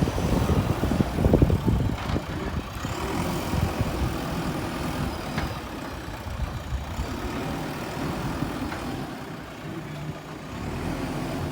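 JCB backhoe loader's diesel engine running, louder and rougher for the first couple of seconds, then settling to a steadier, lower running note.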